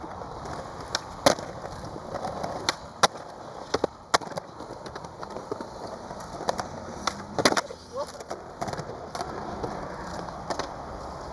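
Skateboard wheels rolling on hard ground, broken by several sharp clacks of the board hitting and landing.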